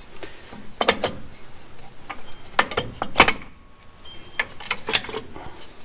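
Sharp metal clicks and clinks of a Chevy Nova's rear drum brake shoes and their spring hardware being set onto the backing plate by hand: a handful of separate clicks, the loudest about three seconds in.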